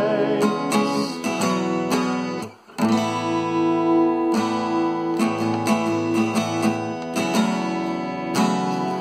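Acoustic guitar strummed, chords ringing, with a brief break in the playing about two and a half seconds in.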